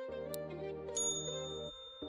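Quiz background music with a light tick, then a bright ding about a second in that rings on as the music drops away: the chime that marks the correct answer being revealed.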